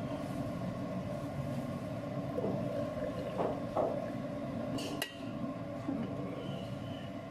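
A few light clinks and knocks of kitchenware as a cup is tipped into a stainless steel pitcher, the sharpest knock about five seconds in, over a steady background hum.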